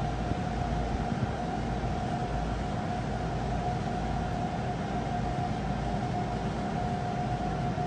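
A large cargo ship's engines and machinery running as it moves slowly along the quay: a steady low rumble with a thin, steady whine above it.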